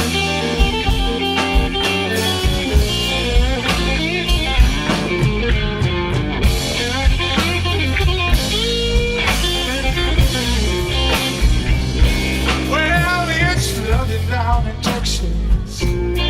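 Live blues trio playing a slow blues: electric lead guitar playing bent-note phrases over bass guitar and drums.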